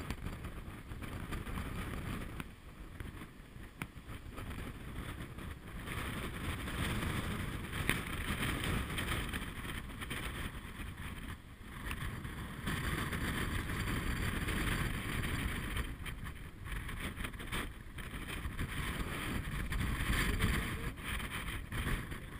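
Wind buffeting the camera microphone in uneven gusts, a low rumbling rush that swells and eases every few seconds.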